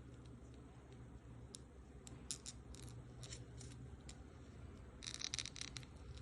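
Candy packaging being handled and opened by hand: scattered sharp crinkles and clicks, then a quick cluster of them about five seconds in.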